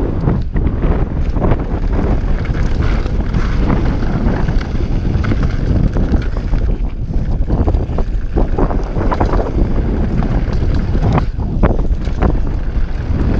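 Wind buffeting a GoPro action camera's microphone as a Scott Voltage 720 mountain bike descends a loose, rocky dirt trail at speed, with the tyres crunching over gravel and the bike rattling and knocking over stones throughout.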